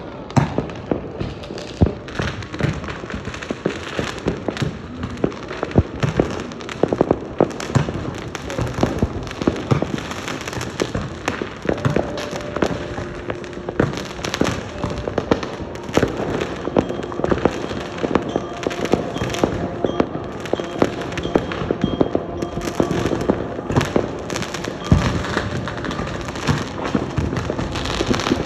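Fireworks going off all around in a dense, continuous barrage: many overlapping bangs and crackles, with louder single bangs standing out every second or so.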